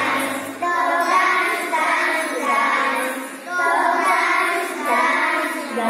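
A group of young children singing a song together in unison through microphones, in sung phrases with short breaks between them.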